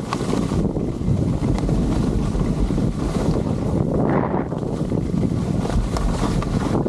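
Wind buffeting the microphone of a camera carried by a skier gliding downhill: a steady, low rushing noise.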